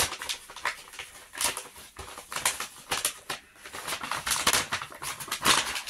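White paper wrapping being pulled open and unfolded by hand, crinkling and rustling in a quick run of irregular crisp crackles.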